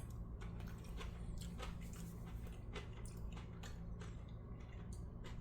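Faint wet clicks and smacks of a person chewing a mouthful of rice with sauce, onions and peppers, over a low steady hum.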